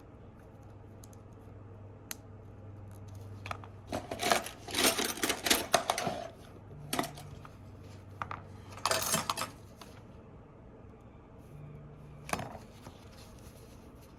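Small metal tools and phone parts clicking and clattering as they are handled during iPhone 8 reassembly, in a busy burst about four to six seconds in, another around nine seconds, and a single click near the end, over a low steady hum.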